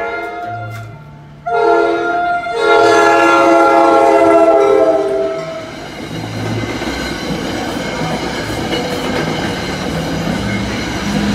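NJ Transit commuter train's horn sounding for a grade crossing: one blast ends about half a second in, a short blast follows, then a long blast of about three seconds, the closing short-long of the standard crossing signal. Then the train passes through the crossing with a steady noise of wheels on rail.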